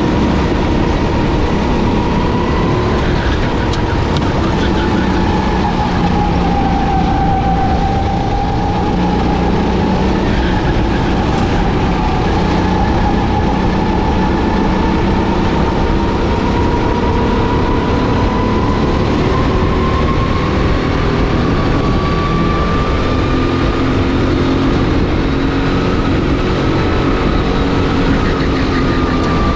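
Racing kart engine running continuously during a race. Its pitch dips slowly about a quarter of the way in, then climbs gradually over the later part as the kart speeds up.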